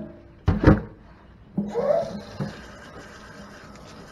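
Heavy knocks of the vacuum pump being handled and set down in a stainless steel kitchen sink, followed from about a second and a half in by a steady hiss of water from the sink's hose sprayer.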